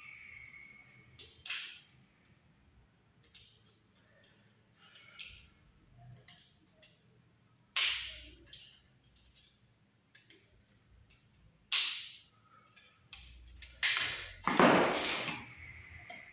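Clicks and a few sharp snaps of hand tools and electrical wire being handled while preparing wire ends for a switch or outlet, with a louder, longer rasp near the end.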